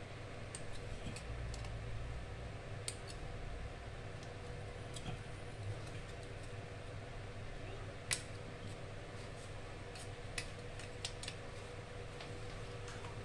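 Small metal scissors cutting the thin flange of an aluminum dental stock tray: scattered sharp snips and clicks, the loudest about eight seconds in, over a steady faint hum.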